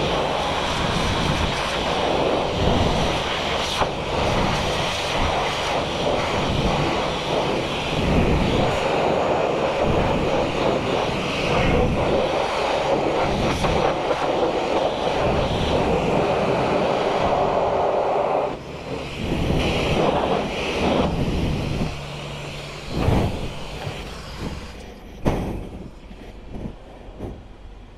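High-pressure car-wash lance spraying water in a steady, loud hiss that cuts off about two-thirds of the way in. After that come a few short sprays and some knocks.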